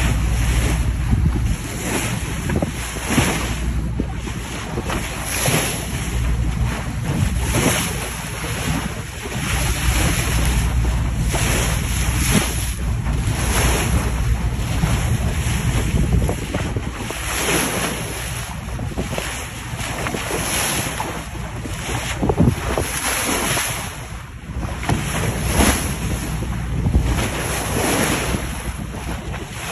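Wind buffeting the microphone over the rush of sea water along a moving boat's hull, surging in irregular gusts.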